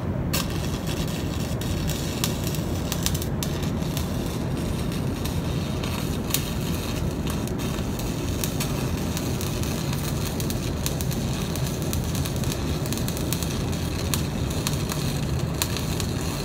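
Electric arc welding, scab patches being welded in place: a steady crackling of the arc that strikes just after the start and runs on without a break.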